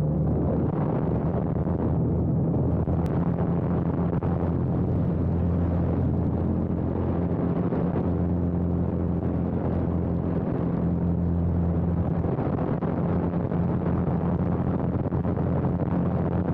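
Biplane's piston engine running steadily in flight, a low drone with wind rushing over the airframe.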